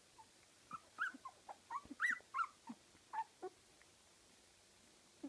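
Fifteen-day-old Kooikerhondje puppies squeaking and whimpering: a quick run of short, high squeaks that starts just under a second in and stops about three and a half seconds in.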